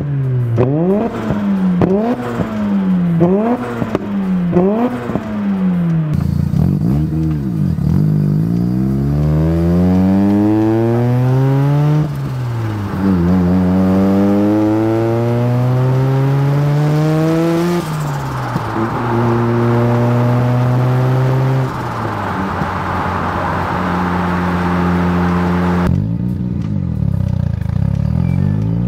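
Mazda FD RX-7's street-ported twin-turbo rotary engine through an RE Amemiya cat-back exhaust. It is blipped quickly about five times, then pulls away in long rising sweeps of revs, broken twice by sudden drops as it shifts up.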